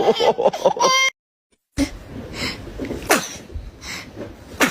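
A person sneezing: a high, wavering voiced build-up, a cut to dead silence for about half a second, then sharp sneezes, the strongest about three seconds in and again near the end.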